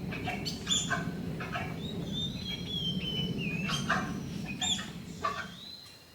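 Tapir giving thin, high-pitched whistling squeals that glide and waver, with a few shorter sharp calls between them, over a steady low background rumble.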